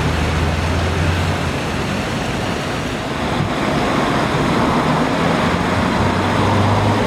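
City street traffic: a steady wash of road noise from passing vehicles, with the low hum of an engine going by at the start and another near the end.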